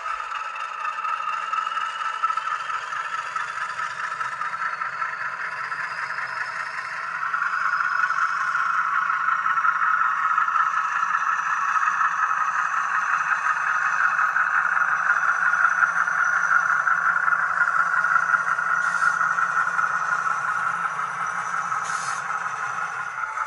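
H0 scale model diesel locomotive running with its freight cars along the layout track, a steady mechanical running sound that grows louder about seven seconds in.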